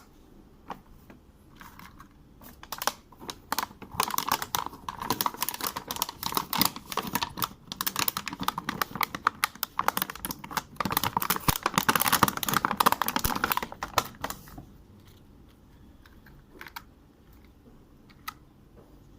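Rapid clicking and crackling of handling noise from a toy truck and its packaging being handled. It is busiest from about four to fourteen seconds in, with only a few scattered clicks before and after.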